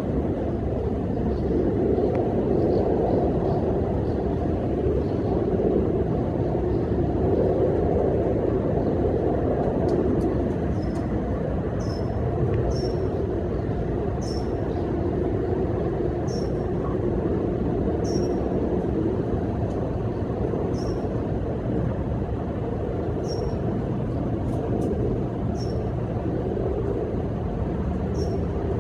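Steady low outdoor rumble with no distinct events in it. From about ten seconds in, a small bird gives a short, high, slightly falling call, repeated about every second or so.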